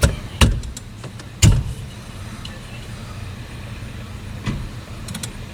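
Plastic console trim of a car's gear shifter being pried and pressed into place: three sharp knocks and clicks in the first second and a half, then a few fainter clicks near the end, over a steady low hum.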